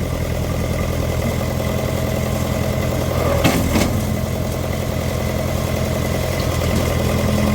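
Case 580CK backhoe loader's engine running steadily while the bucket is being dumped, with one brief sharp knock about three and a half seconds in.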